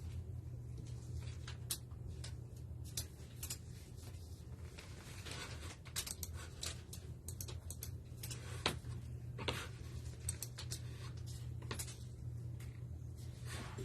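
Scattered light clicks and rustles of small objects being handled, over a steady low hum.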